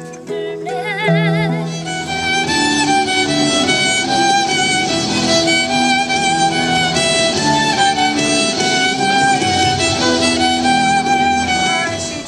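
Fiddle music: a held note with vibrato about a second in, then a quick run of changing notes.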